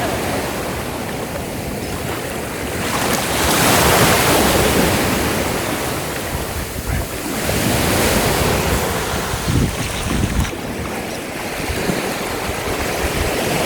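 Surf washing onto a sandy beach, swelling louder as waves break about three to four seconds in and again near eight seconds, with wind rumbling on the microphone.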